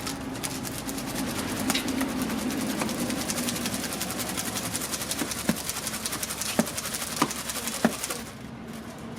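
Rice grains rattling on a woven ungo winnowing tray as it is shaken to sort out chaff and bad grains: a fast, even rattle with a few sharper clicks, stopping about a second before the end.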